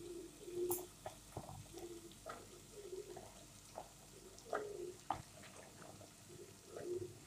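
Pieces of chopped marrow dropping into a pot of masala, with soft plops at irregular intervals.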